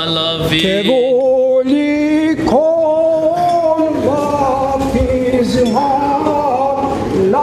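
Male voices singing Byzantine chant unaccompanied, a slow melodic line of long held notes that slide and turn between pitches.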